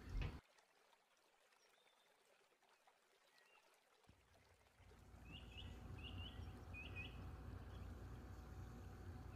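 Near silence for about four seconds, then a low steady background rumble comes up, with a few short, faint, high chirps soon after.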